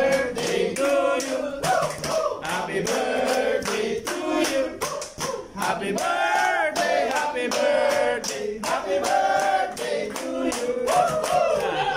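A group of men singing together loudly while clapping their hands in a steady rhythm.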